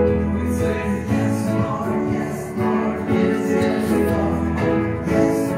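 A worship song: singing over instrumental accompaniment, with sustained notes and a steady bass.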